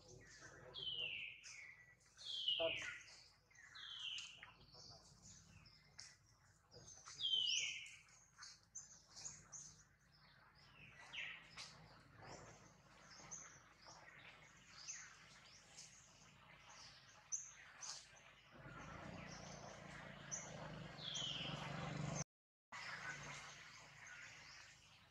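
Birds chirping: a series of short calls, each falling in pitch, a few seconds apart. Near the end a steady rush of noise rises and the sound cuts out for a moment.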